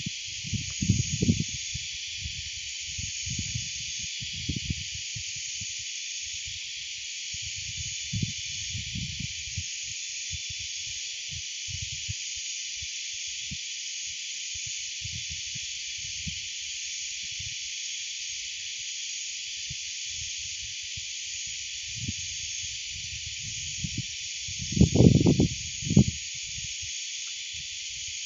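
Steady high-pitched insect chorus from the riverside forest, an unbroken hiss. Scattered low thumps and knocks of handling in a small boat sound over it, the loudest cluster about 25 seconds in.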